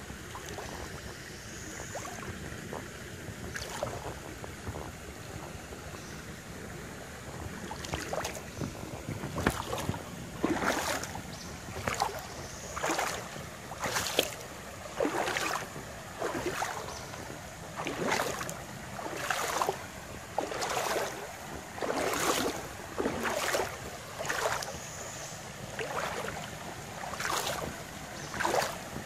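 Shallow creek water running over a rocky bed. From about eight seconds in, a regular splash a little over once a second as bare feet wade through the water.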